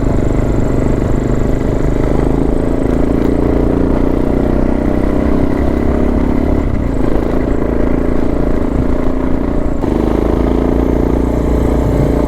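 Suzuki DR650's single-cylinder four-stroke engine running steadily as the dual-sport bike climbs a hill road, with wind noise. The engine note shifts twice in the second half.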